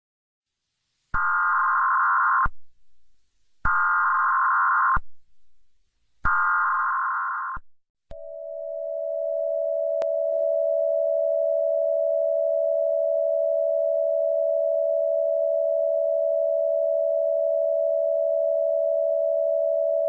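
Emergency Alert System header tones: three short bursts of data tones, each about a second and a half long and about a second apart. About eight seconds in, a single long steady attention tone begins and holds.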